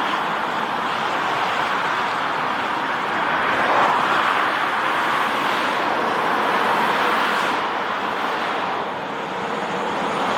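Steady roar of a Lockheed Martin CC-130J-30 Hercules's four Rolls-Royce AE 2100 turboprops on landing approach, with a faint propeller hum under it and slow swells in level.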